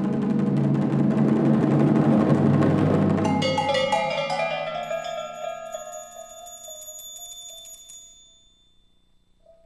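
Percussion trio: a fast roll on drums swells to a peak and breaks off about three and a half seconds in. A cluster of high, ringing metal percussion tones sounds in its place and fades away over the next five seconds.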